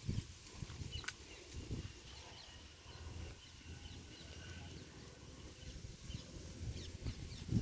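Faint birds chirping over a steady low rumble, with one thin held call lasting about two seconds, starting about a second in.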